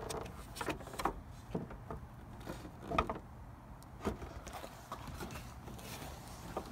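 Scattered light clicks and knocks of plastic on the truck body as an LED taillight housing's toothed mounting pins are worked toward their holes. The loudest knock comes about three seconds in.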